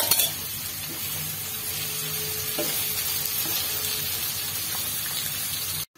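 Potato sticks, carrot strips and onion sizzling in hot oil in a kadai as a wooden spatula stirs them, with a few light knocks of the spatula. The sizzling is steady and cuts off abruptly just before the end.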